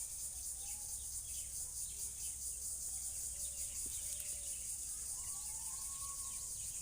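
Steady high-pitched insect drone with faint bird chirps over it, and a few soft gliding calls near the end.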